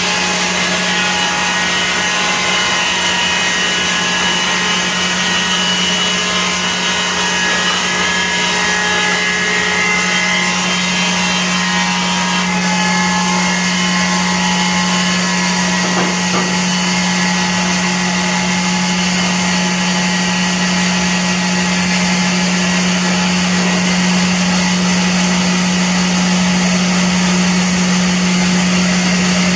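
Baker Blue Streak 3650E bandsaw mill running on its 50 HP electric motor while a squared log is fed through the band blade: a loud, steady low hum under broad machine noise. Higher whining tones fade out about twelve seconds in.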